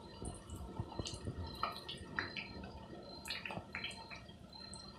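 Triangles of spiced wheat-flour dough deep-frying in hot oil in a kadhai: a steady sizzle with many scattered crackles and pops.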